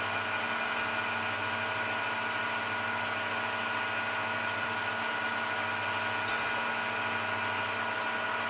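Steady hum of shop machinery running, several constant tones holding level with no change, and a faint light clink about six seconds in.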